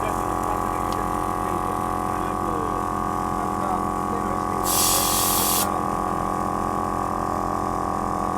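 Air compressor motor running with a steady drone, and a burst of air hissing for about a second near the middle.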